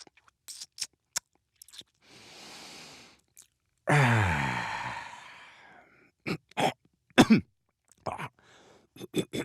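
A man making wordless 'dad noises': mouth clicks and lip smacks, a breathy exhale, a long loud groaning sigh that falls in pitch about four seconds in, then short grunts, coughs and throat-clearing.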